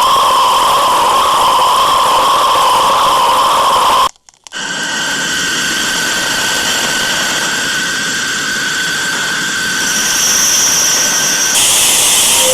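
Steady hissing drone with held whistling tones, a planet 'sound' made audible from spacecraft recordings. It breaks off briefly about four seconds in and a different drone with other steady tones takes over, a higher whistle joining near the end.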